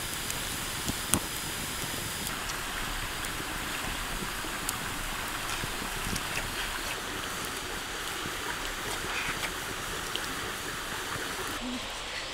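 Open wood fire burning with a steady hiss and scattered crackles, with one sharp pop about a second in.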